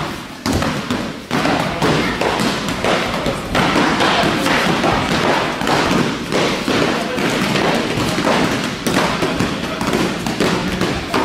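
Padded foam practice swords striking a student over and over as he runs between two lines of swordsmen: many rapid, irregular thuds and slaps.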